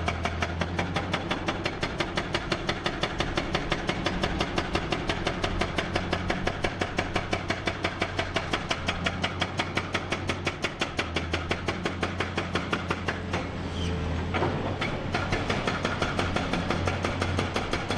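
Large hydraulic excavator's diesel engine running under load, with a rapid, even clatter of about five beats a second over a steady low hum; the clatter briefly eases a little past the middle.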